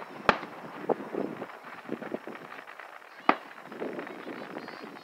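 Aerial firework shells bursting in a display: two sharp bangs, one just after the start and a second about three seconds in, with fainter pops between them.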